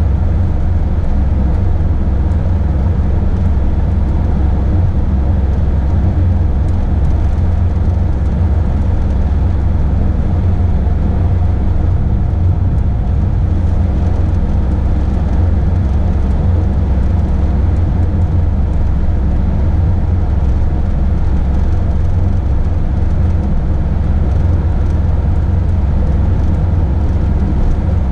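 Motorhome driving, a steady low rumble of engine and road noise that holds an even pace throughout.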